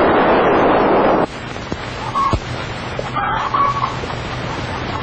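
A loud rush of noise from a big firecracker going off, cut off abruptly about a second in. Then chickens clucking now and then in a barnyard.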